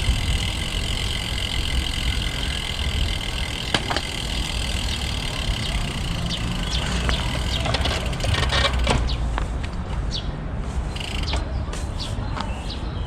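Steady wind and rolling rumble of a road bike ridden along a park path, with birds chirping repeatedly in the second half.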